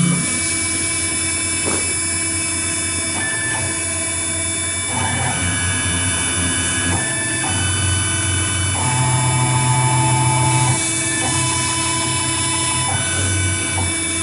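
AKM6090 CNC router engraving foam: the stepper motors driving the axes sing steady tones that jump to a new pitch every second or so as the moves change speed and direction, over a constant high whine from the machine.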